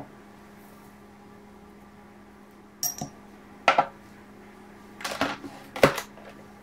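A drinking glass set down sharply on a table, then after a pause a few knocks and clatters of a stand mixer's head and stainless steel bowl being handled and locked into place.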